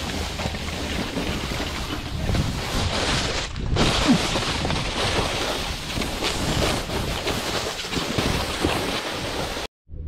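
Wind buffeting the camera microphone over the hiss and scrape of a snowboard riding on snow, a steady rushing noise with a low rumble. It cuts out for a moment near the end.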